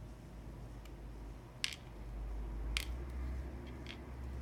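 Two sharp clicks, about a second apart, then a few fainter ticks, from small metal lock parts being handled while a pin-tumbler mortise cylinder is taken apart. A low handling rumble swells in the middle.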